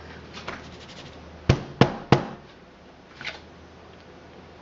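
Three sharp knocks about a third of a second apart, then a fainter one about a second later: hard objects knocking against each other or set down on the work table while handling containers of soap batter.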